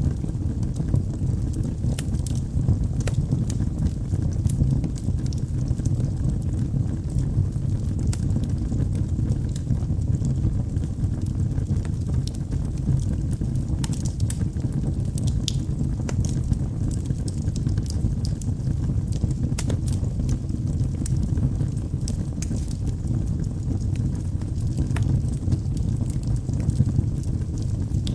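Wood fire burning in a fireplace: a steady low rumble of flame with scattered sharp crackles and pops from the burning logs.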